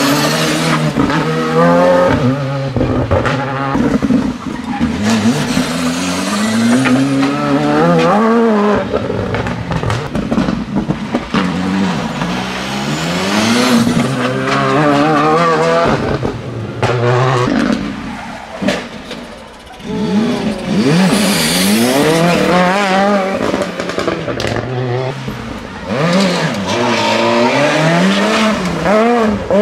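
Rally cars, among them Škoda Fabias and a Peugeot 207, coming one after another through a tight turnaround. Each engine drops in pitch as the car slows, then climbs again and again through the gears as the car accelerates away. There is a short lull between cars about two-thirds of the way through.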